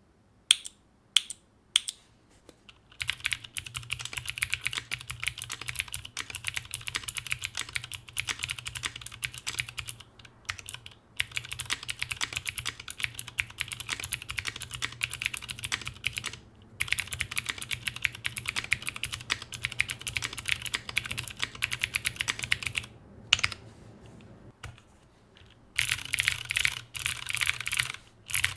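Typing on a HEX4B plateless custom mechanical keyboard with Cherry MX Hyperglide Blue clicky switches: a few single key presses, then long runs of fast, dense key clicks broken by short pauses.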